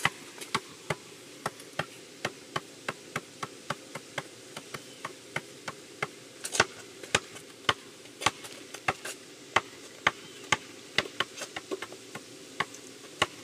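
Basketball dribbled on an asphalt driveway: sharp bounces in a quick, uneven rhythm of about two to three a second, some harder than others.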